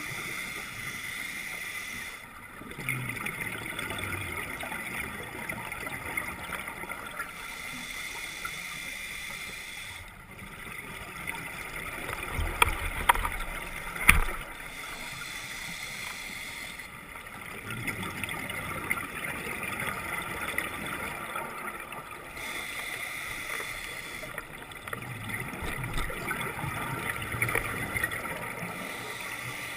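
Underwater scuba breathing: a diver's regulator cycling, with bursts of exhaled bubbles every several seconds. A few sharp knocks near the middle.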